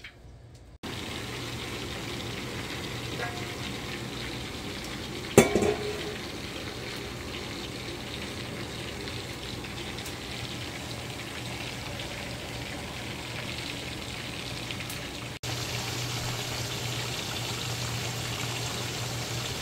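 Steady sizzle of chicken pieces frying in a pan of hot oil. There is a single clatter about five seconds in.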